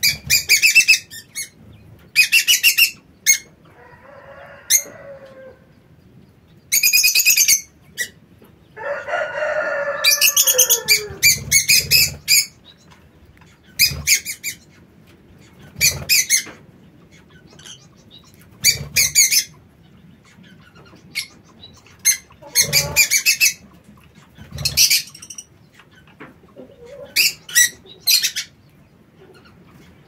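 Aviary birds calling: short, high-pitched chirping bursts repeat every two to three seconds, with a longer, lower call that falls in pitch about nine seconds in.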